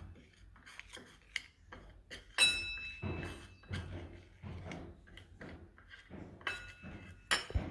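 A spoon mixing haritaki powder into a spoonful of honey in a small bowl: scattered taps, clicks and scraping, with a few ringing clinks of spoon on the vessel, the loudest about two and a half seconds in and another pair near the end.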